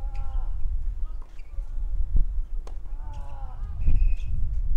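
Tennis rally on a clay court: racquets strike the ball several times, with a short falling vocal grunt from a player on two of the hits, over a steady low rumble.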